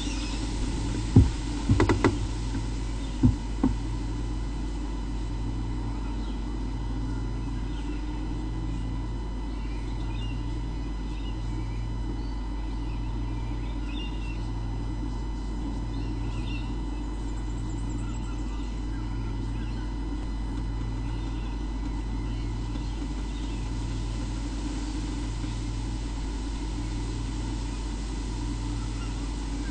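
Steady electrical hum with a low throb pulsing about every one and a half seconds. A few sharp knocks fall in the first four seconds, and faint high chirps come through around the middle.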